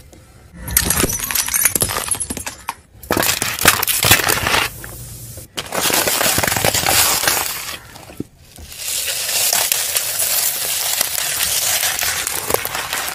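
A car tyre rolling over and crushing a series of objects on concrete, in several short stretches with abrupt breaks between them. The sound is loud crunching and crackling, with cardboard chip tubes being knocked over and flattened, and later a mass of small gel beads scattering across the ground.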